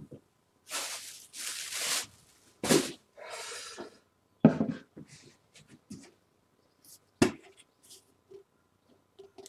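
Kitchen handling sounds: a few short rustling hisses in the first seconds, then several sharp knocks and small clicks as a small dish and a bottle are picked up and set down on the counter.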